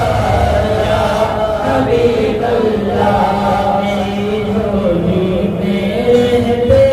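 A man sings an Islamic devotional song (naat) unaccompanied into a microphone. He draws out long, ornamented notes that slide slowly in pitch.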